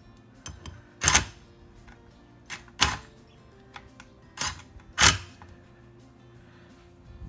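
Cordless power driver run in five short bursts, driving the bolts of a Thomas aerator pump's head cover.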